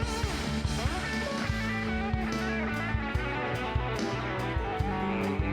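Band music led by guitars, with a bass line and a steady drum beat.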